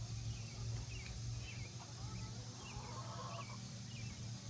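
Faint, scattered chirps of small birds over a steady low hum.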